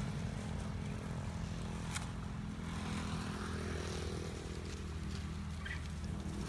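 A small engine running steadily nearby: a constant low hum, with a sharp click about two seconds in.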